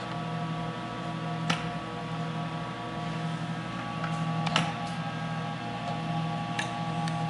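Steady electrical hum from a Palomar HRW 250B welding power supply, with sharp clicks about a second and a half in and again about three seconds later.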